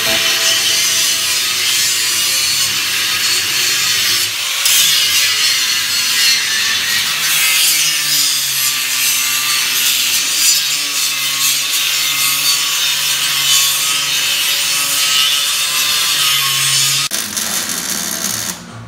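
Angle grinder cutting into the sheet-metal body of a Land Cruiser: a loud, steady, harsh grinding hiss that drops off near the end.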